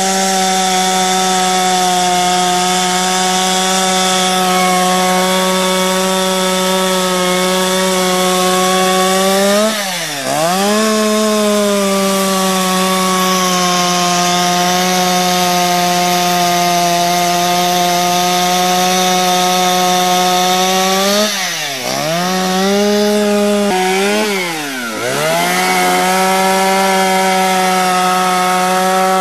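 Petrol chainsaw held at high revs while carving wood. Three times, about ten seconds in, just past the middle and again a few seconds later, the revs drop sharply and climb straight back up.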